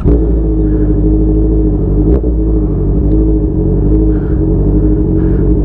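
Honda CB650R inline-four engine, fitted with a cat-delete exhaust with a long canister, running at a steady engine speed with an even, unchanging pitch.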